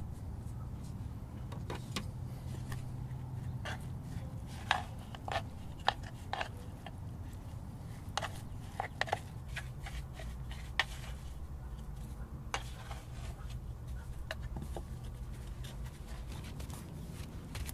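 Scattered light clicks and taps of earthenware pots and dishes being handled and set down, irregular and mostly in the middle of the stretch, over a low steady rumble.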